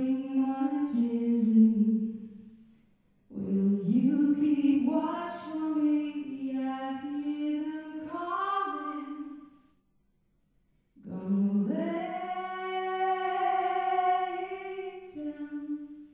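A woman singing solo into a microphone, mostly unaccompanied, in long held phrases separated by two short silent pauses.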